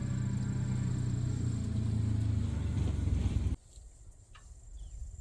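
A vehicle's engine running steadily at low revs, which stops abruptly about three and a half seconds in, leaving a quiet background with a faint click.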